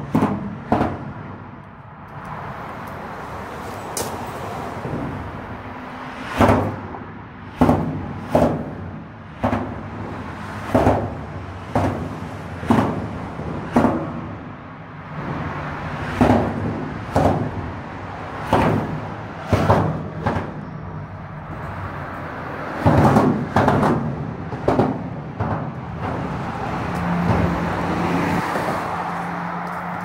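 Cars and trucks crossing a bridge deck expansion joint, heard from beneath the deck: a run of loud, sharp thumps, many in pairs about a second apart, over the steady hum of passing traffic.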